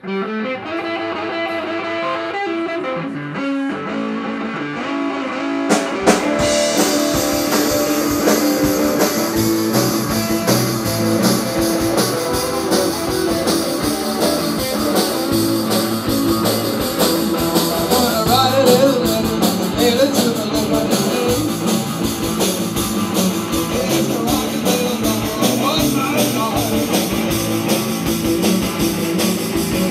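Live rock band playing: electric guitars and bass open, and the drum kit with cymbals comes in about six seconds in, after which the full band plays on.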